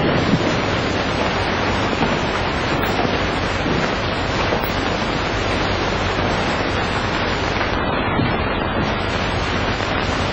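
Steady, loud hiss and rumble of an old film soundtrack, with no clear sound event standing out of it.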